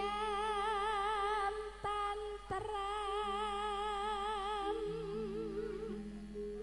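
A female singer (sinden) sings long held notes with a wide, even vibrato into a microphone, over steady lower accompaniment notes. Two short clicks sound about two seconds in, in a break between phrases.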